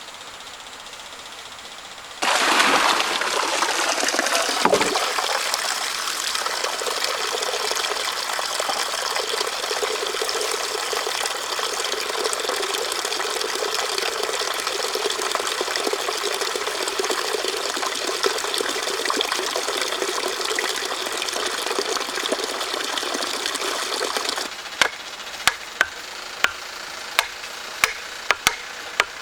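Steady rush of water that cuts in suddenly and stops abruptly near the end, followed by a string of sharp knocks, about two a second.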